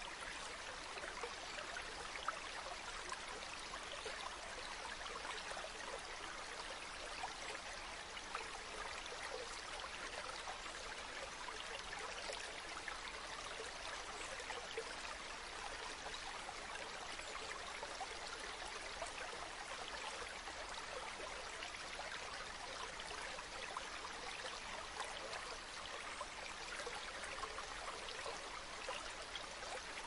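Small stream of water flowing steadily, an even, unbroken sound of running water that sits mostly in the higher pitches.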